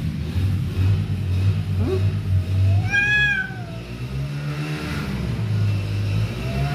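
Domestic cats in an aggressive standoff: a low, steady growl runs throughout, breaking into a rising-and-falling yowl about three seconds in, a lower wavering moan a little later, and another yowl starting near the end.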